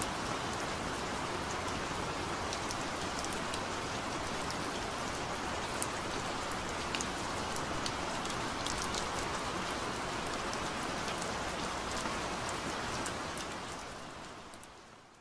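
Steady rain: a dense hiss with scattered sharp drop ticks, fading out near the end.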